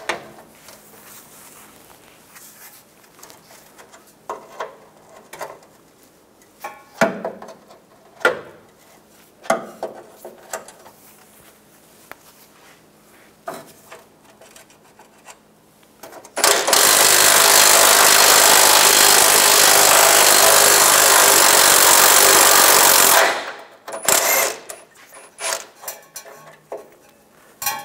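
Occasional clicks and knocks of a hand ratchet with a 21 mm socket working on a truck bumper's side mounting bolts. A bit past halfway, a cordless power tool runs loud and steady for about six or seven seconds, spinning a bolt loose, and a few more metal knocks follow.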